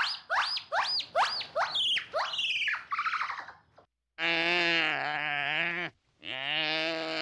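Animal calls: a rapid series of short cries, each sweeping up and then down in pitch, about two a second. After a brief break come two long, steady, deeper calls, each about two seconds long.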